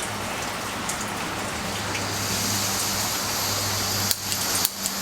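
Gas hissing from a small canister backpacking stove (MSR PocketRocket) as its valve is opened; the hiss gets louder about two seconds in. From about four seconds comes a run of sharp clicks, attempts to light it.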